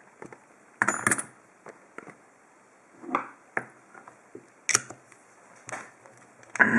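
Irregular metal clicks and knocks as an American 5200 padlock and its tools are handled while the lock is being taken apart. The loudest clatter comes about a second in and again near the end, with a few single clicks in between.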